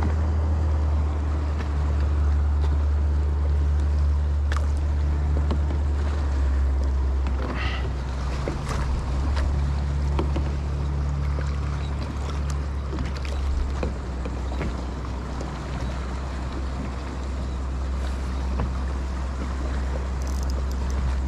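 Steady low wind noise on the microphone over water lapping against a kayak hull, with a few faint clicks and knocks from the boat.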